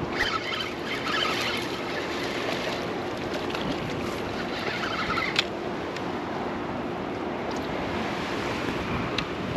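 Outdoor wind and water noise, a steady wash with a faint low hum running under it and a couple of brief hissing swells.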